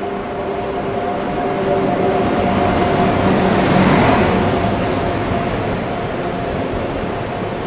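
An electric locomotive and its double-decker coaches pulling into the platform and passing close by. The locomotive's noise is steady, with a few brief high squeals from the wheels, and is loudest about four seconds in as it goes past.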